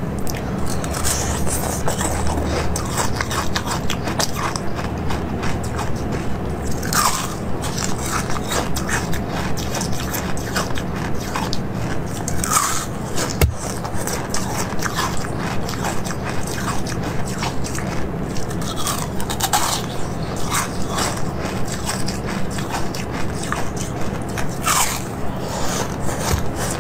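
Close-up biting and crunching of a translucent green moulded food, a steady crackling chew with a few sharper bites standing out.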